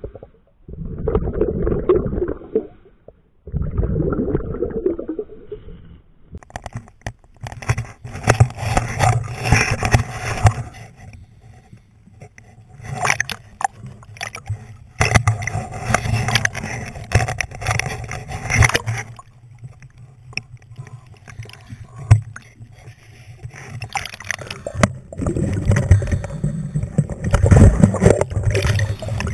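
River water heard through a diver's underwater camera: muffled underwater rumbling in long bursts at first. About six seconds in, the camera breaks the surface and water sloshes and splashes around it with sharp clicks. Near the end it goes under again and the muffled rumbling returns.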